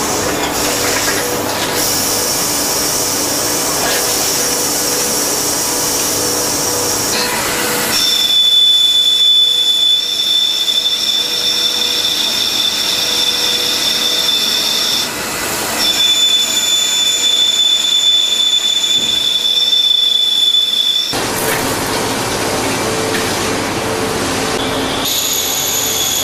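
CNC lathe turning a metal workpiece, the cutting tool against the spinning part giving a steady high-pitched squealing whine over a machine hiss. The whine shifts in pitch and strength every several seconds and is strongest in the middle stretch.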